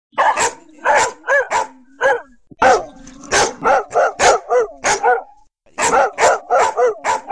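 Dogs barking in rapid runs of short, sharp barks, about twenty in all, with two brief pauses, about two and a half and five and a half seconds in.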